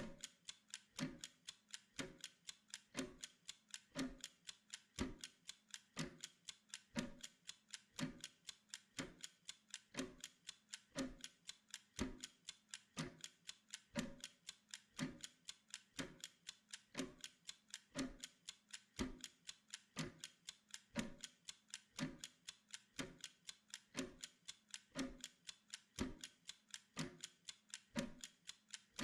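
Steady mechanical ticking of a timer, about two ticks a second in an even tick-tock rhythm.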